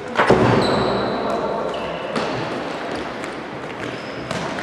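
Tchoukball play in a sports hall: a loud ball impact just after the start that echoes through the hall, then further ball thumps, the last near the end, and sneakers squeaking on the court floor.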